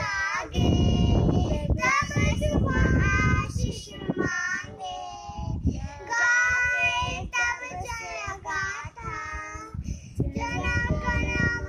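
Two young girls singing a song, with a low rumble under their voices.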